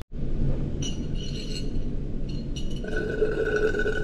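Glass mason jar clinking a few times as it is handled, each touch ringing on for a second or so, over a steady low hum.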